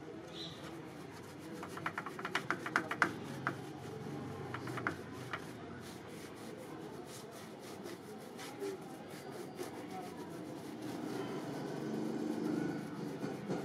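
Paintbrush bristles scrubbing over a moulded gypsum plaster panel: quick runs of short scratchy strokes, densest about two to three seconds in and again around five seconds, over a steady low background rumble.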